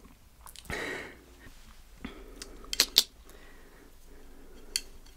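Tableware being handled: a few separate sharp clicks and taps, the loudest two close together about three seconds in, with a soft breathy rustle about a second in.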